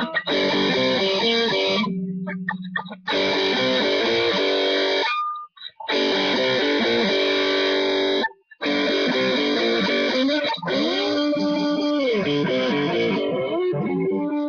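Electric guitar being played: loud held chords that stop short three times, then a run of notes bent up and down near the end.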